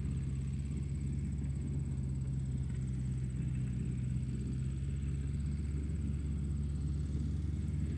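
Tractor engine running steadily at a constant speed, a low even rumble with no changes in revs.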